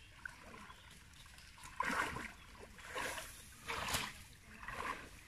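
Pond water splashing and dripping as a triangular bamboo-framed push net is lifted and hauled through shallow water: quiet at first, then several short splashes from about two seconds in.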